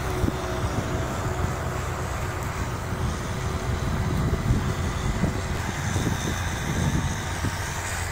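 Kubota farm tractor's diesel engine running steadily under load as it pulls a plough through dry, clodded soil.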